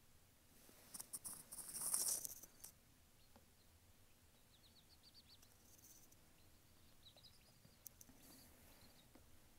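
Faint peeping of a baby silkie chick in short quick runs. About a second in comes a brief burst of rustling.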